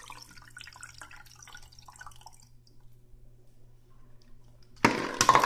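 Water draining through a tornado-tube connector between two plastic bottles, with scattered small drips and trickles that die away after about two and a half seconds. Near the end, a sudden loud clatter as the bottle rig falls over and water splashes out.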